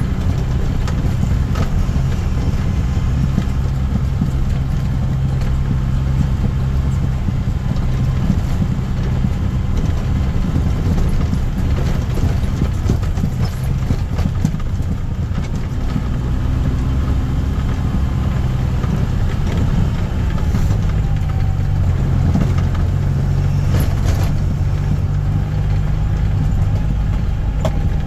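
Heavy truck's diesel engine running steadily, heard from inside the cab as the truck rolls slowly along a quarry haul road. The engine note eases off past the middle and picks up again later, with a few light rattles.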